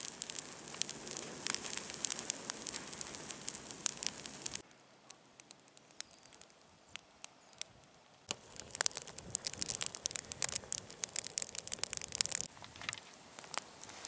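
Fallen spruce branches burning in an open fire, crackling with many sharp pops. The crackling drops away suddenly about a third of the way in, stays sparse for a few seconds, then picks up again.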